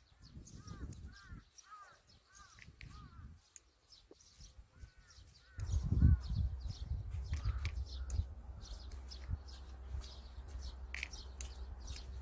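Birds calling in the open: small birds chirping high and often, and over the first five seconds a series of short, arched, caw-like calls, about three a second. About halfway a low rumble of wind on the microphone sets in and stays.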